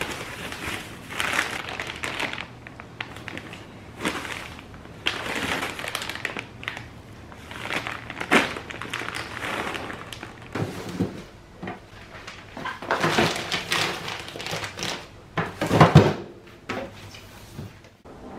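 Crinkling and rustling of a foil insulated liner and plastic food packs being handled and lifted out of a styrofoam cooler box, in irregular bursts, with a louder thud near the end as something is set down.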